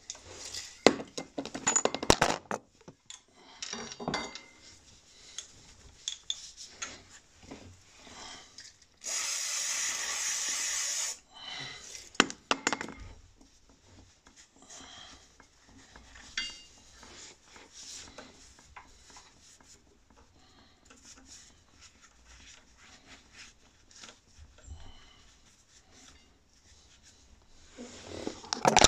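Metal tools clinking and scraping against a motorcycle's front brake caliper while its pistons are turned and cleaned, with rag rubbing between the knocks. About nine seconds in, a two-second hiss of aerosol brake cleaner spray cuts in and stops sharply.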